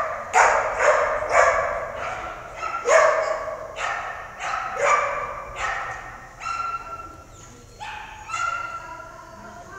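A dog barking repeatedly, about a dozen sharp barks with echo from a large covered arena, loud at first and growing fainter toward the end.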